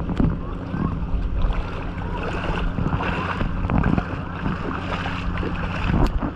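Boat engine running steadily with a low hum, with water noise and wind buffeting the microphone in irregular gusts.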